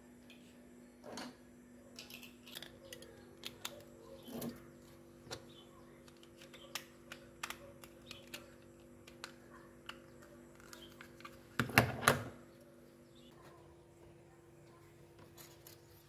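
Light clicking and rustling of hands handling a string of thin-wire fairy lights and its small plastic battery box, with a louder flurry of knocks about twelve seconds in.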